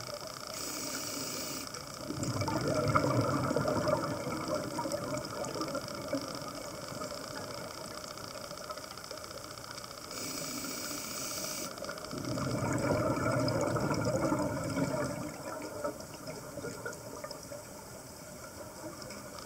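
Scuba diver breathing through a regulator, heard underwater: two breaths, each a short hissing inhale followed by a few seconds of exhaled bubbles gurgling out of the regulator.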